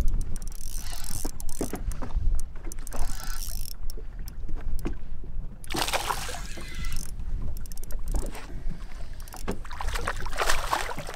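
Wind buffeting the microphone over choppy lake water lapping against a bass boat's hull, a steady low rumble with louder noisy surges about six and ten seconds in.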